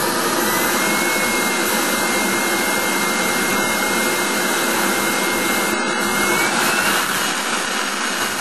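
NT-70 model jet turbine engine running: a loud, steady rush of jet noise with a thin high whine that holds level, then climbs about two-thirds of the way through as the engine speeds up.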